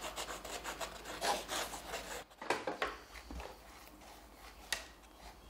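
Drawing strokes scratching on sketchbook paper: irregular rubbing and scratching, louder in the first half and fainter after a short gap, with a couple of light ticks near the end.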